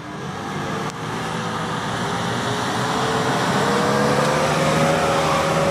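Modified Nissan Patrol off-roader's engine working under load as it crawls up a dirt slope, its revs and loudness rising gradually through the second half.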